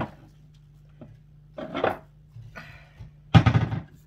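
Wire whisk beating sauce in a saucepan: a click, then short bursts of rapid scraping strokes against the pot, the last and loudest near the end.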